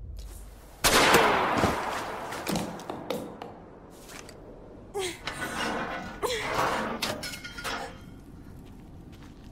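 Pistol shot in a cartoon soundtrack: a sudden loud blast about a second in that rings out and fades over a second or two. Shorter noises with a falling tone follow around five and six seconds in.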